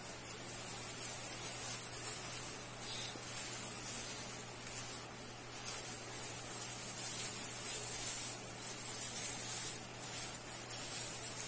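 Metallic tinsel garland rustling and crinkling as it is handled and turned, in a hiss that swells and fades, over a steady low hum.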